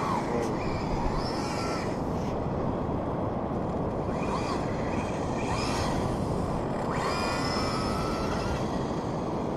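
A steady rushing wind noise on the microphone, over which the whine of a Traxxas Slash 4x4's brushless electric motor rises and falls a few times as the RC truck speeds up and slows on the sand.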